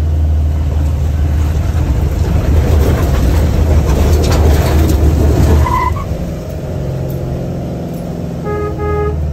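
Car engine working hard up a slope while the tyres slip and spin on a loose stone track, with gravel noise building to a peak. The strain eases about six seconds in.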